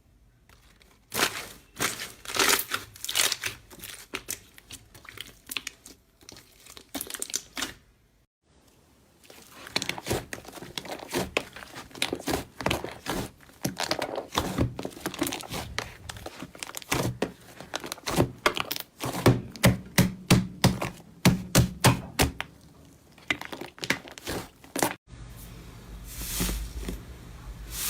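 Slime being squeezed and pressed by hands, giving a dense run of crackling and popping clicks. The crackling stops briefly about eight seconds in, then picks up again.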